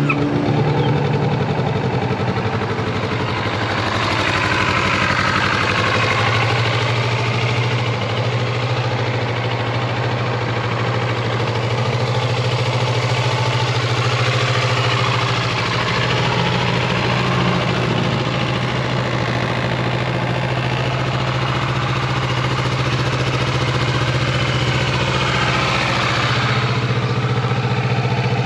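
2019 Kawasaki Vulcan S's 649 cc parallel-twin engine idling steadily in neutral.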